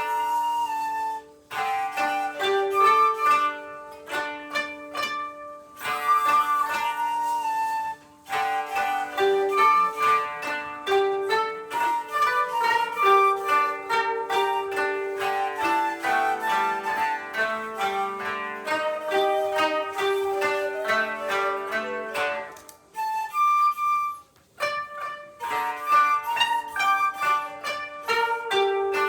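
Koto and shakuhachi playing together: quick plucked koto notes that ring and fade, with held shakuhachi tones over them, broken by a few short pauses.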